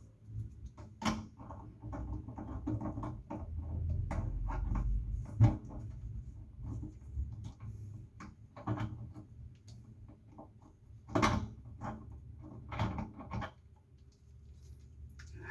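Irregular clicks, knocks and scrapes of hands and tools working a faucet's pipe fittings under a sink, with one sharp knock about five seconds in.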